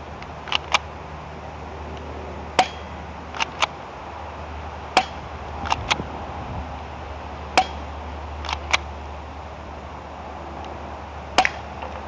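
Plastic M1911 A1 spring airsoft pistol being shot repeatedly: four single sharp snaps with a brief ring, spaced about two to four seconds apart, each followed within a second by a quick double click of the slide being cocked again. Steady wind noise underneath.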